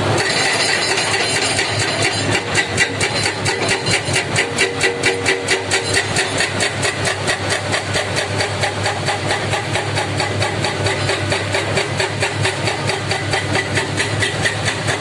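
Heavy diesel engine of construction machinery running with a regular pulsing, about four beats a second, from about two seconds in.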